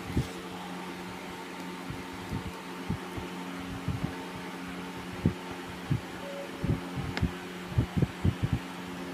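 Steady low hum with scattered soft, dull thumps, more frequent in the second half.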